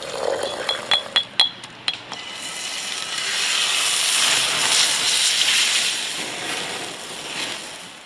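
A utensil clinks sharply against a cooking pot about five times. Then a T-bone steak sizzles steadily in a pan over an open fire, fading near the end.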